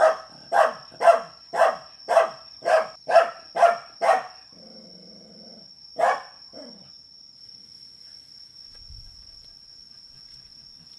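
A dog barking in a quick, even run of about nine barks, roughly two a second, then one more bark about two seconds later. A steady high-pitched tone runs underneath.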